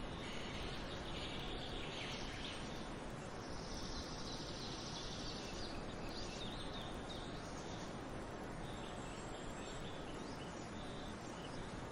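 Steady outdoor nature ambience: an even hiss with faint high chirps coming and going.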